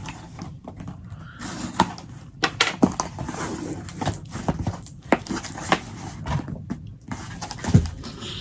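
Irregular taps, knocks and rustles, as of objects being handled and moved about, with a few louder knocks scattered through.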